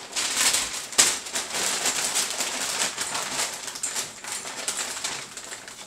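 Brown kraft paper wrapping being pulled open and crumpled off a drum hardware stand, a dense crackling rustle with a sharp crack about a second in, easing off toward the end.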